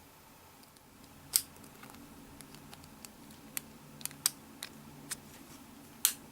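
Sharp plastic clicks and taps from handling an iPod Nano 6th generation while fitting a screen protector film onto it: about seven clicks, the loudest about a second in and again near the end.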